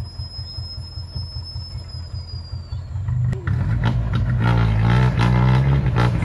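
Diesel dump truck engine running with a low rumble, growing louder about three seconds in as the truck revs and pulls forward.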